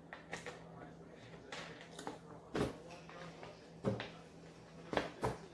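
Short knocks and thuds from a plastic soda bottle and dishes being handled on a table, with four louder ones in the second half, over a faint steady hum.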